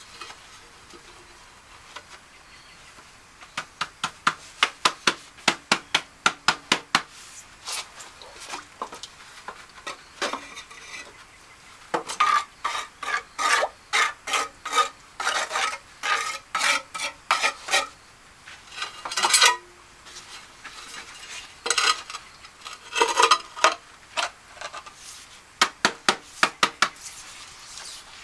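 Metal trowel scraping and stirring through cement mortar in runs of quick strokes, about three a second, with short pauses between the runs.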